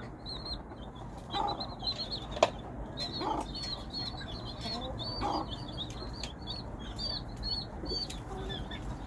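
A brood of chicks peeping continuously in short high chirps while a hen gives low clucks every couple of seconds, calling the chicks to her. A single sharp click sounds about two and a half seconds in.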